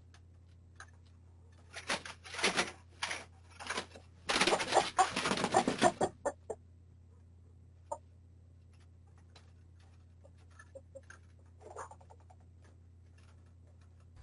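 Chickens on their roost clucking, with a loud flurry of squawks and rustling from about four to six seconds in, then a few faint taps and scuffles as they settle.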